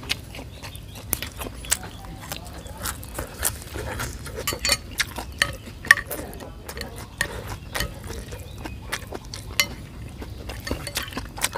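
Eating noises: a metal spoon clinking and scraping in an earthenware bowl, with wet slurping and chewing of a soupy blood dish, as a string of irregular small clicks, the loudest about six seconds in.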